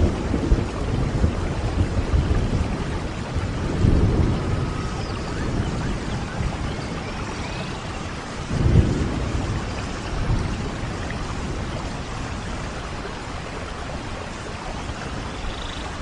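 Steady rain with low rolls of thunder, one swelling about four seconds in and a louder one near nine seconds.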